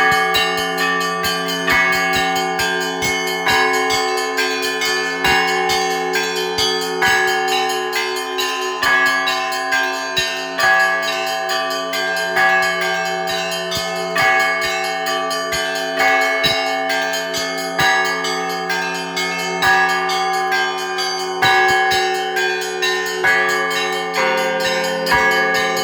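Russian Orthodox church bells ringing: several bells of different pitches struck in a quick, continuous pattern, the small bells chiming rapidly over the long, sustained ring of the larger ones.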